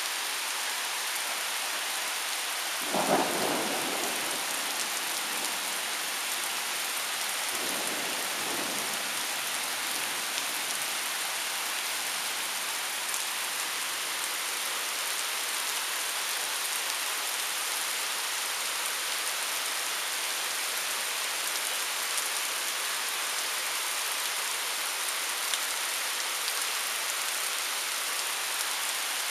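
Steady hiss of heavy thunderstorm rain. A sharp clap of thunder comes about three seconds in, and a fainter rumble of thunder follows a few seconds later.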